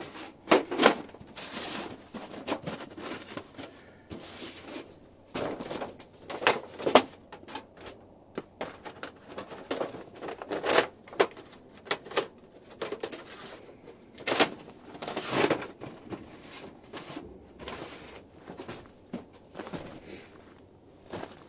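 A thin sheet-metal stovepipe being handled, scraping and knocking against itself and the tarp under it, with crinkling of the tarp, in irregular scrapes and knocks.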